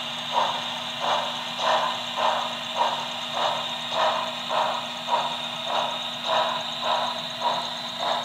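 Model steam locomotive's sound unit playing an even steam chuff, about one and a half to two puffs a second as the engine creeps along, over a constant electric hum and hiss.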